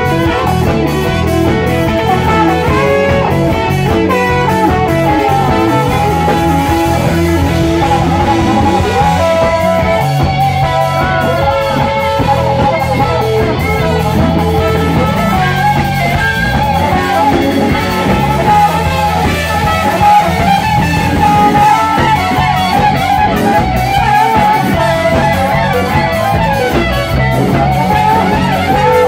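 Live band playing loudly: electric guitar, trombone and trumpet over bass and drum kit, with a steady beat.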